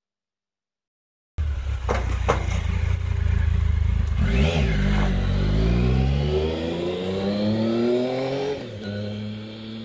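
Sport motorcycle engine running, then pulling away with its pitch rising steadily for about four seconds before dropping at a gear change and settling. Two sharp clicks come shortly after the sound starts.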